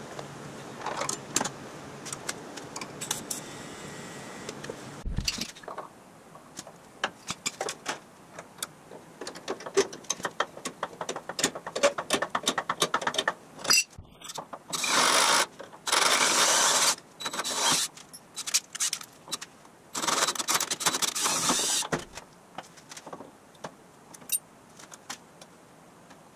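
TIG welding hiss for about five seconds, stopping abruptly. Then a run of clicks and metal clatter, and several loud bursts of a cordless drill boring into metal.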